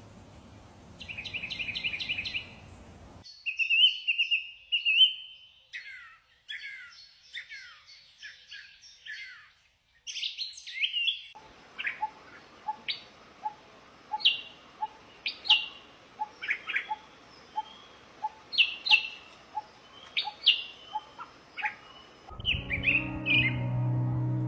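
Small songbirds chirping and singing: short trills and rapid high chirps, with a faint regular ticking note about twice a second in the middle stretch. The sound changes abruptly a few times, and near the end a low steady hum comes in under the chirps.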